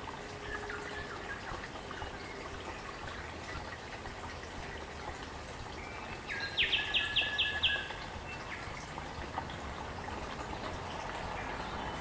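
Forest stream running steadily, with a bird calling about six seconds in: a quick run of about six sharp, high notes, the loudest sound here. Fainter bird calls come and go over the water.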